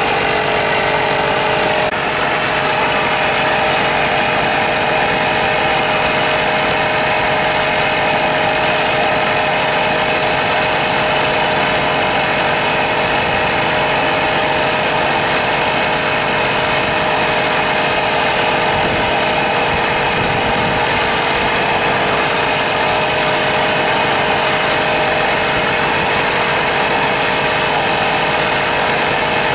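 A motor running steadily and continuously, with a constant hum over a broad hiss and a slight change in tone about two seconds in.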